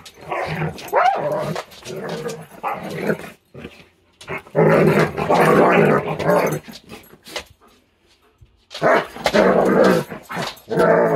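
Two dogs growling at each other, with a few barks. There are long loud growling bouts from about four to seven seconds in and again from about nine to ten and a half seconds in, with shorter growls in the first three seconds.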